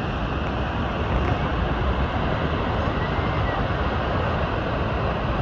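Steady rushing roar of water pouring over Niagara Falls, an even, unbroken noise heaviest in the low end.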